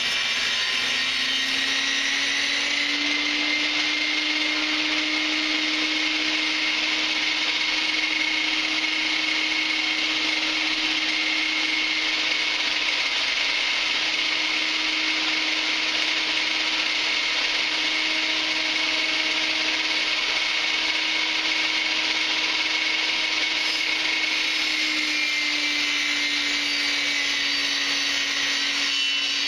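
Chicago Electric 10-inch, 15-amp benchtop table saw running with a steady, loud motor whine as its blade spins. The pitch sags a little for the first few seconds and again near the end, when boards are being fed through the blade.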